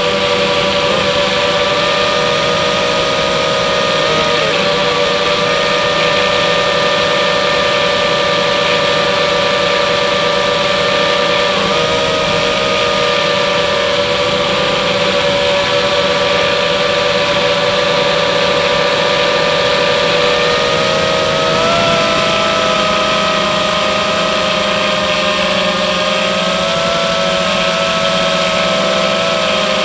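FPV quadcopter's electric motors and propellers whining steadily, heard from the drone's own onboard camera, with a hiss of rushing air. The pitch wavers slightly with the throttle and steps up a little about twenty seconds in.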